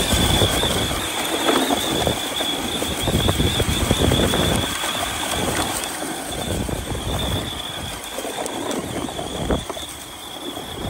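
Arrma Mojave 4S RC truck driven hard on sand: a steady high whine from its brushless motor and drivetrain over the uneven rush of spinning tyres throwing sand.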